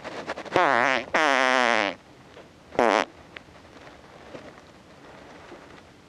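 Recorded fart noises played from a Pooter fart-sound device: a short blast about half a second in, a longer wavering one straight after, and a brief third one about three seconds in.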